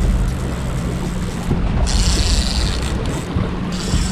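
Charter boat's engine running steadily at trolling speed, with wind on the microphone and water noise. Twice, about halfway through and near the end, a brief high-pitched buzzing rasp cuts in over it.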